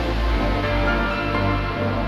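Background music: sustained synthesizer chords over a steady deep bass, with no speech.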